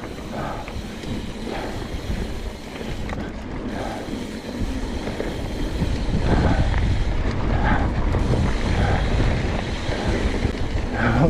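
Wind noise on an action camera's microphone over the rumble of mountain bike tyres rolling on dirt singletrack, with small knocks and rattles from the bike. It gets louder about halfway through.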